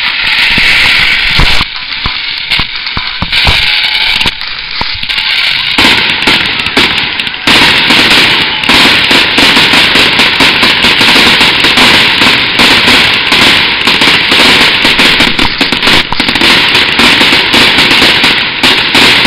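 Fireworks display at close range: shells bursting with bangs and crackle in a loud barrage. The bangs come in separate volleys at first and run together into a continuous dense crackle from about seven seconds in.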